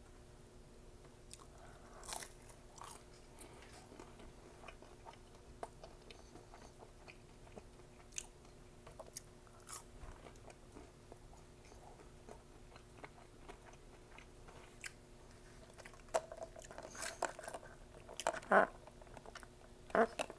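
Chewing and biting of McDonald's food: scattered soft clicks and crunches that grow busier and louder in the last few seconds, over a faint steady hum.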